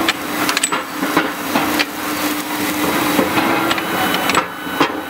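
Horizontal CNC induction hardening machine at work: quench water spraying with a steady hiss under a constant hum, broken by frequent sharp metallic clicks and knocks.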